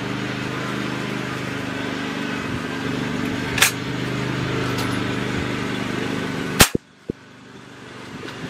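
A single .177 air rifle shot, a sharp crack about two-thirds of the way in, over a steady low hum. A lighter click comes a few seconds before the shot.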